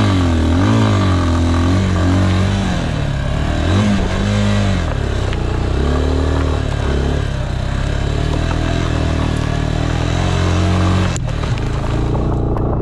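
Motorcycle engine revving up and down as the bike is ridden hard over a rough dirt track, the pitch rising and falling every second or two. Near the end there is a sharp click, after which the engine note holds steadier.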